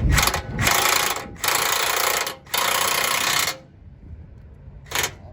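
Impact wrench run in four bursts of up to about a second each, then two short blips near the end, running a suspension fastener down.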